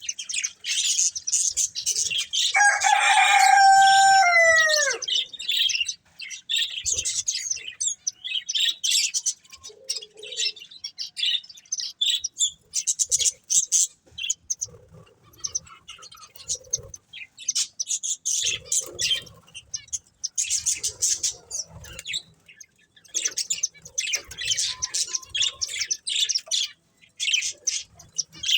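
Budgerigars chirping and chattering in quick, busy bursts. About three seconds in comes a louder, lower call whose note is held for a second or two and then falls away.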